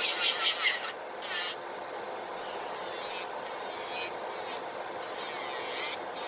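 Electric nail drill with a sanding bit grinding down an artificial nail: a gritty rasping through the first second and a half that comes back more weakly in short spells later. Under it runs the steady whoosh of the Makartt nail dust collector's fan.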